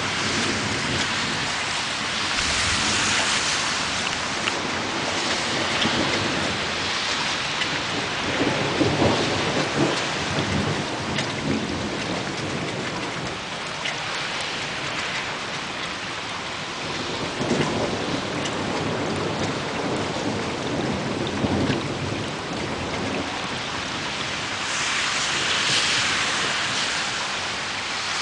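A night thunderstorm: steady rain falling throughout, with thunder rumbling about eight seconds in and again several times past the halfway point.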